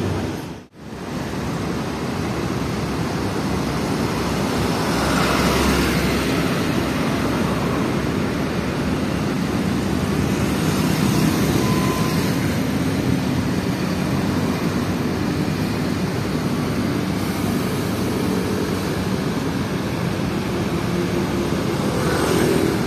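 Steady traffic noise from tour buses and cars crawling past in a jam: engines running and tyres on the road, with vehicles passing closer about five seconds in, again around eleven seconds, and a motorbike near the end. The sound drops out briefly just under a second in.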